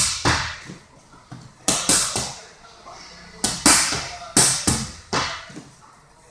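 Punches and kicks smacking against focus mitts in quick bursts of two or three strikes, each hit echoing off the room.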